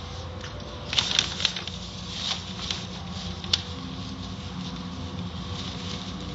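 Automatic car wash heard from inside the car: water spray and cloth wash strips pattering and slapping against the windshield, over a steady low hum. A few sharper slaps stand out about a second in and again a little past halfway.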